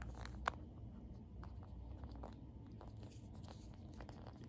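Faint handling of a plastic vending-machine prize capsule: scattered light clicks and rubbing as it is picked up and its two halves are worked open, with one sharper click about half a second in.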